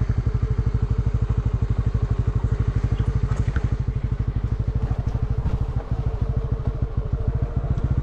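Motorcycle engine running steadily with an even, rapid pulsing beat as the bike rolls along a dirt trail.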